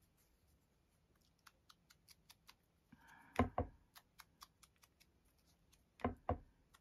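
Faint light ticks, two or three a second, broken twice by a sharp double knock, from hands working a glue bottle around the edges of a paper cut-out on a journal page.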